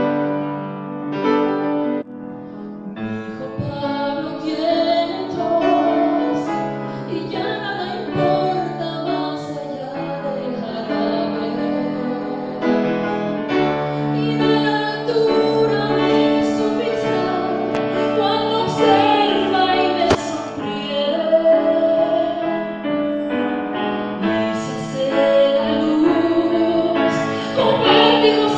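A song setting of a poem: a solo voice sings a gliding melody over steady instrumental accompaniment.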